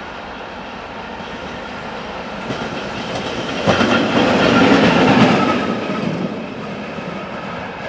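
ChME3 diesel-electric shunting locomotive, with its six-cylinder ČKD diesel engine, running light past at close range. The engine hum and the wheels clicking over rail joints swell to their loudest about four to five seconds in as it passes, then fade as it moves away.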